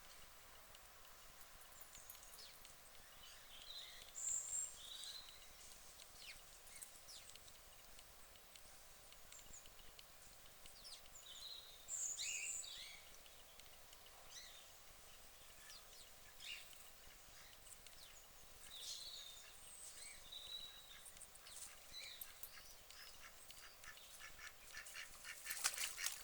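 Ducks calling at intervals: scattered short calls, the loudest about four and twelve seconds in, with a quick run of calls near the end.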